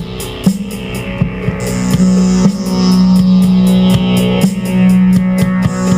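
Background music: electric guitar with drums and a steady beat.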